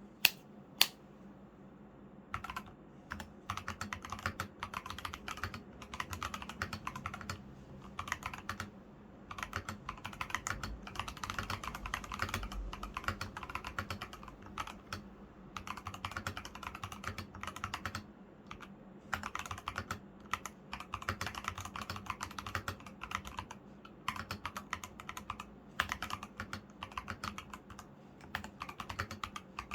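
NJ80 mechanical keyboard with stock switches, Fantasy Virus keycaps, Akko sponge and rubber foam, and lubed stabilizers being typed on in runs of quick keystrokes broken by short pauses, with two sharper clicks right at the start. The uploader calls the stock switches crisp even without lube.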